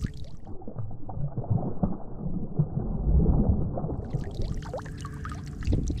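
Water sloshing and gurgling around a kayak, heavily muffled with the highs cut off for about the first four seconds. After that it turns clear, with small splashes and water dripping.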